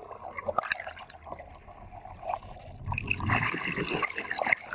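Muffled water churning and bubbling around an underwater camera, with scattered small pops and clicks; it grows louder and fuller about three seconds in.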